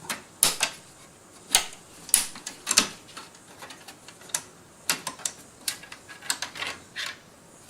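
Irregular sharp clicks and light knocks of hands working hardware inside a PC case while the sound card is taken out.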